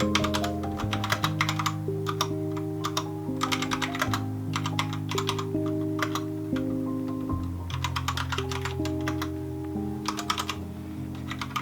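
Mechanical keyboard typing in quick bursts of clicks with short pauses between, over soft background music of slow held chords.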